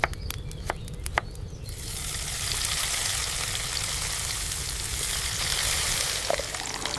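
A few sharp taps, then food sizzling and frying in a hot pan, a dense steady hiss that starts up about two seconds in.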